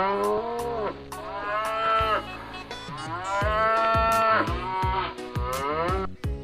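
Buffalo lowing: a few long, drawn-out bellowing moos that rise and then fall in pitch, over light background music with a steady beat.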